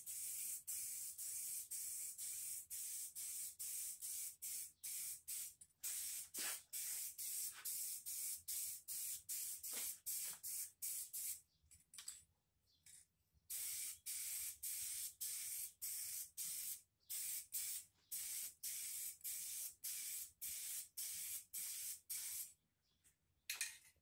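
Aerosol spray-paint can hissing in short, quick bursts, about two or three a second, as paint is sprayed on. The bursts pause for about two seconds near the middle and stop shortly before the end.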